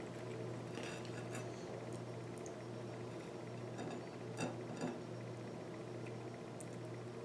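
Faint, scattered clinks and taps of tableware, the two loudest close together a little past the middle, over a steady low hum.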